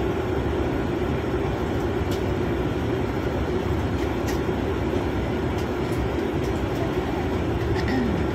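Steady low rumble inside a passenger jet's cabin as the plane rolls along the runway, engine and rolling noise at an even level.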